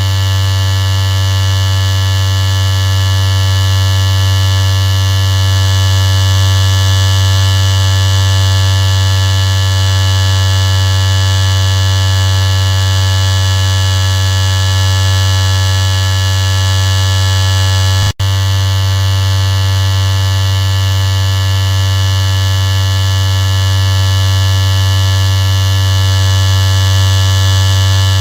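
Electric shaver running with a steady, low buzz that cuts out for an instant about two-thirds of the way through.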